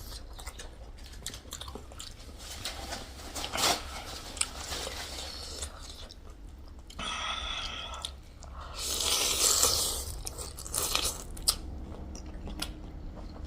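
Close-miked mukbang eating: chewing, biting and crunching on food, with sharp clicks and a couple of longer noisy stretches in the middle.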